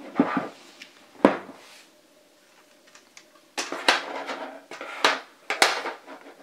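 Black plastic 18650 cell holder frames clattering and scraping on a tabletop as they are handled and pushed together: a knock about a second in, then several rattling scrapes in the second half.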